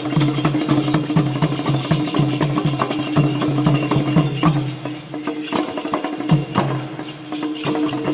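Music with a regular percussion beat, about two to three strokes a second, over a steady held tone; it gets a little quieter about five seconds in.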